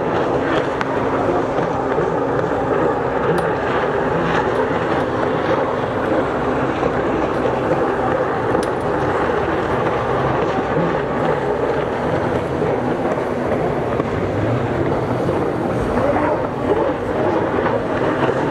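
Engines of several racing jet skis running at speed, a loud, steady drone.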